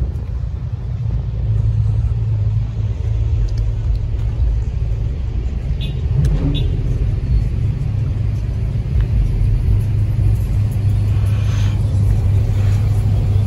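Low, steady engine rumble of a pickup truck rolling slowly toward the microphone, getting a little louder about a second and a half in.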